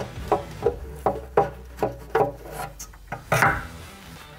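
Klipsch LaScala AL5 midrange horn being worked loose and drawn out of its wooden cabinet: a run of knocks, two or three a second, then a louder scrape a little past three seconds in.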